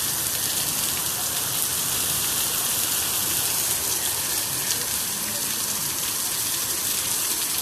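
Heavy rain pouring down steadily, a dense even hiss of drops hitting the ground and surfaces during a desert thunderstorm downpour.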